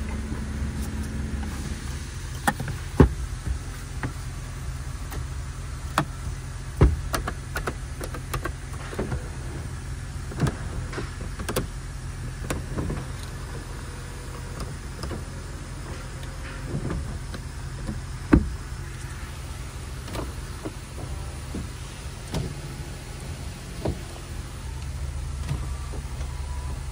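Clicks and knocks from switches and trim in a 2013 Honda CR-V's cabin over a steady low hum, with a faint power-window motor running at times. The sharpest clicks come about three, seven and eighteen seconds in.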